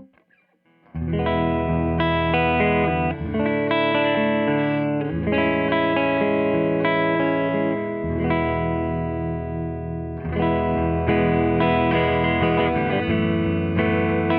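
Gibson '58 Historic Les Paul electric guitar played through a Tone King Imperial Mk II amp on a clean, slightly hot setting, with held chords ringing out and changing every one to three seconds. A sharp click comes right at the start, before the playing begins about a second in.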